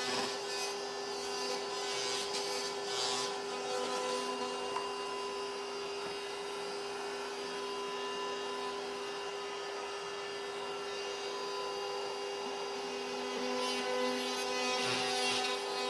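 A power tool's motor runs steadily with a constant whine, with louder rasping spells twice, about two seconds in and near the end, as it cuts through drywall.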